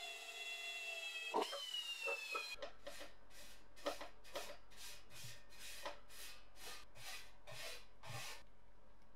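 A die grinder with a red abrasive wheel whines steadily against a steel plate, with a sharp knock about a second and a half in. Then a paintbrush swishes back and forth over a metal tray in quick, even strokes, about two a second, for several seconds.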